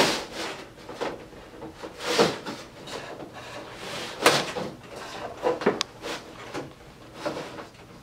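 Metal housing of an ATI Dimmable SunPower T5 aquarium light fixture being slid apart by hand: intermittent sliding scrapes and light knocks, with a sharper knock about four seconds in.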